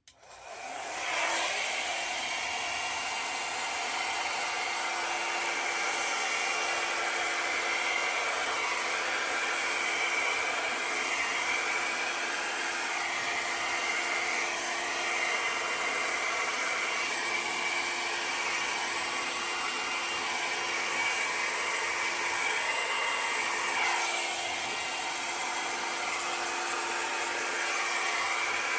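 Handheld hair dryer switched on about a second in and then running steadily: an even rush of blown air over a steady motor hum.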